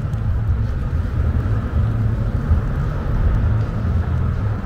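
Steady low rumble of a running vehicle, with a faint higher hum.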